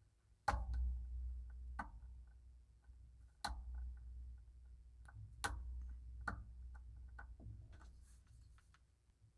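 Spring bar tool and spring bar clicking and scraping against the metal end link and lugs of a dive watch as a rubber strap is fitted: irregular sharp clicks, about five louder ones spread out, with small ticks between.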